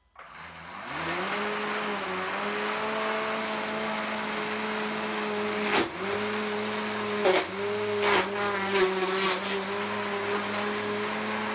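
Prototype 15 lb combat robot's spinning weapon, driven by a belt from a brushless motor, spins up in the first second or so and runs with a steady whine. It hits a cardboard box with a sharp strike about six seconds in, another a little after seven seconds, and several more quick impacts a second or two later.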